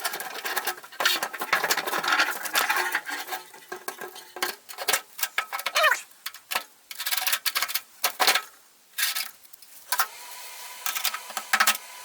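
Hands working a fuel pump assembly and its fittings into a fuel tank: a dense, irregular run of clicks, knocks and scrapes of metal and plastic parts, with a short rising squeak about six seconds in.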